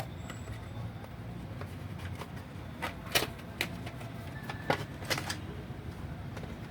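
Hands handling small computer parts while fitting an M.2 SSD to a motherboard: a scattering of sharp clicks and taps, most of them in the middle few seconds, over a low steady hum.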